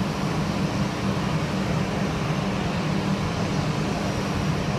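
Steady engine noise from a jet airliner taxiing at a distance, an even rush with a low hum.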